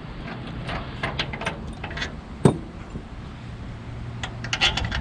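Small metal clinks and clicks of hand tools and bolts being handled during an oil pan installation, with one sharp metallic knock about halfway through and a quick run of clinks near the end.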